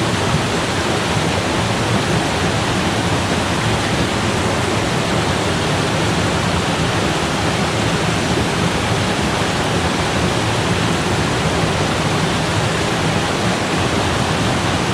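Rushing water of a small cascading stream, a loud, steady, unbroken rush.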